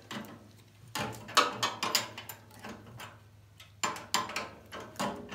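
Hand wrench working a wheel bolt loose on a Muck Truck wheel: quick runs of metallic clicks and clanks, one about a second in and another near the four-second mark, over a low steady hum.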